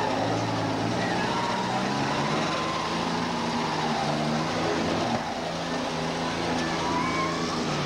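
Demolition derby cars' engines running and revving unevenly, several at once over a noisy arena background.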